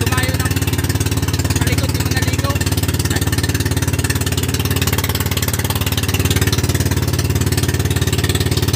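Engine of a motorized outrigger boat (bangka) running steadily while the boat is underway: a loud, fast, even beat that does not change.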